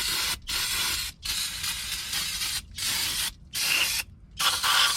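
Aerosol brake cleaner sprayed onto the brake caliper in a string of hissing blasts, about six, with short breaks between them.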